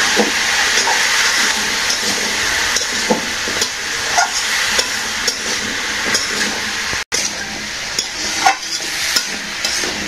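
Chopped vegetables sizzling in a wide pan over an open fire, with a metal spatula scraping and tapping against the pan in irregular strokes as they are stirred. The sound cuts out for an instant about seven seconds in.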